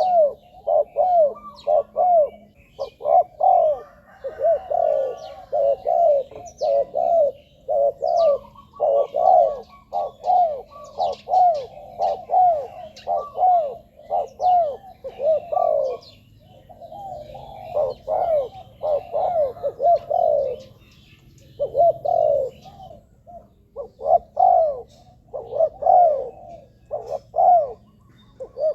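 Spotted doves cooing in long runs of short, rounded notes repeated several times a second, with a brief pause a little past the middle. Faint high chirps of small birds sound behind them.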